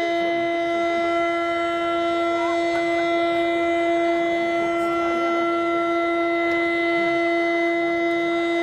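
A long, steady signal tone, like a horn or siren held at one unchanging pitch with strong overtones, sounding just before the launch of a three-shaku firework shell. Faint crowd murmur lies underneath.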